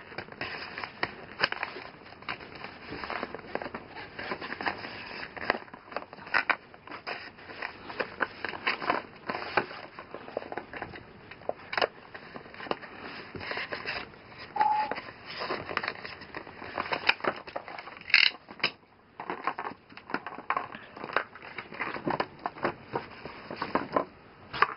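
An action figure's plastic-and-cardboard blister card being pulled open by hand: irregular crackling and crinkling of the plastic and card, with scraping as it is worked apart.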